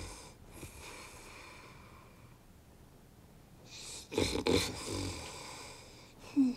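An elderly man snoring in his sleep: one loud, rough snore about four seconds in, followed by a softer one.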